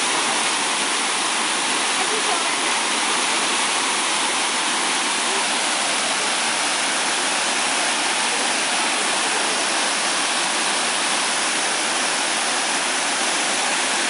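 A waterfall pouring down a sloping rock slab, a steady, even rush of white water.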